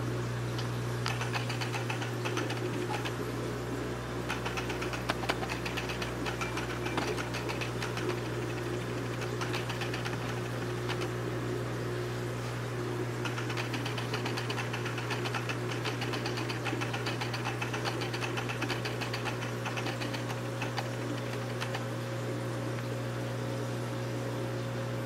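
Steady low hum of aquarium equipment running, with spells of rapid fine clicking that come and go every few seconds.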